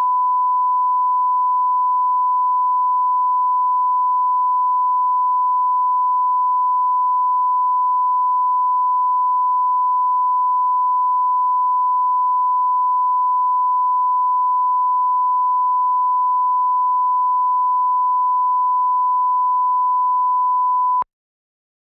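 Broadcast line-up test tone: a steady 1 kHz reference sine tone played with colour bars for setting audio levels. It holds unchanged, then cuts off abruptly about a second before the end, leaving silence.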